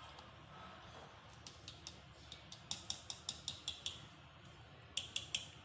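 Whisk stirring a milky orange-and-jelly mixture in a plastic bowl, its wires clicking against the bowl: a few light taps, then a quick run of about eight, and three more near the end.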